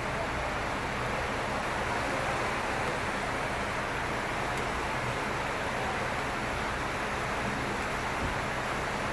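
Mahindra Thar ROXX on the move: steady road and tyre noise, an even rumble and hiss.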